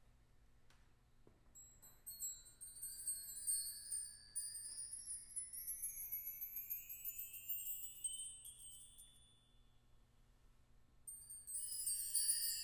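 High-pitched metallic percussion played in a rapid tremolo, bell-like ringing tones sliding slowly upward in pitch, entering about two seconds in and dying away around ten seconds. A denser, louder cluster of ringing metal tones enters near the end.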